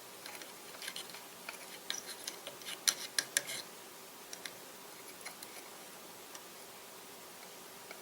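Light, scattered clicks and taps of wires and small tools being handled during soldering work, with a quick cluster of sharper taps about three seconds in, over a faint steady hum.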